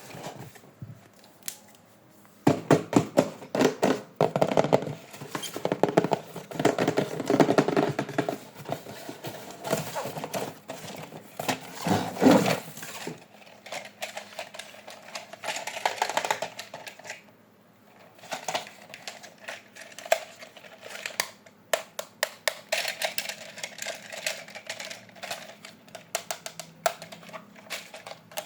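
Toy packaging and parts being handled and opened: crinkling, rustling packaging with many small clicks and taps, busiest over the first half, then lighter, scattered clicking.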